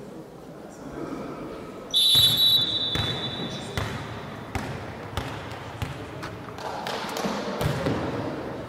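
A referee's whistle blows once, about two seconds in, a single steady high note that is loud at first and then fades. A volleyball then thuds several times at uneven intervals.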